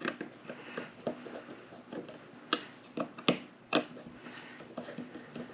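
Screwdriver turning a small bolt on the end bracket of a DRO scale: light metal clicks and scraping, with a few sharper clicks in the middle.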